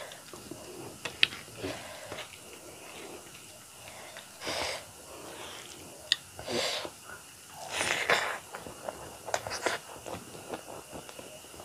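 Close-up eating sounds: a person chewing a mouthful of rice with small wet clicks from the mouth, and several loud, breathy puffs of air through the nose and mouth.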